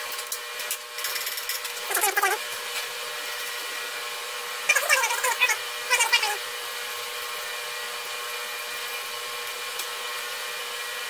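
Lengths of threaded rod (all-thread) clinking and ringing against each other and the metal workbench as they are handled, with a few sharp clanks about two, five and six seconds in. A steady hum runs underneath.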